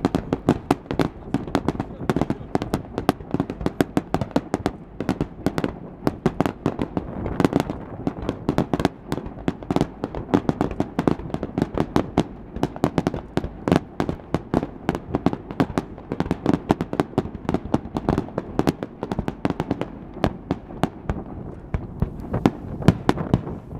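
Aerial firework shells bursting in a dense barrage, several sharp bangs and crackles a second without a break, over a continuous rumble of launches and echoes.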